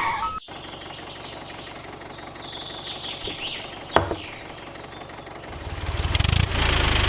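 A sharp click about four seconds in, then a small vehicle engine starts up and runs with a low, even throb for the last second and a half.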